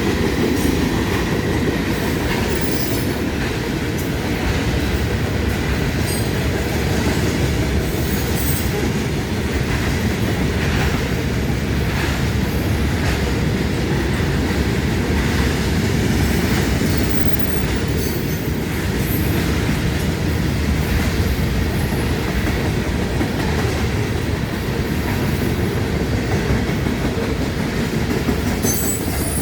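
Long freight train's cars rolling past at close range, a loud steady rumble of wheels on rail. Brief high-pitched squeals and clanks break in every few seconds.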